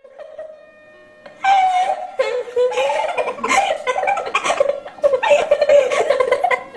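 Two boys laughing hard together, breaking out loudly about a second and a half in.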